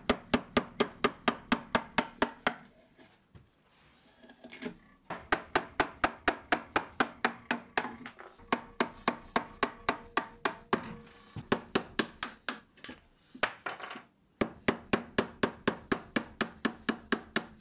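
Mallet striking the handle of a chisel cutting into beech, a quick, even run of knocks about four or five a second as waste is chopped away from a spoon blank. The blows stop for a couple of seconds about three seconds in and again briefly later on.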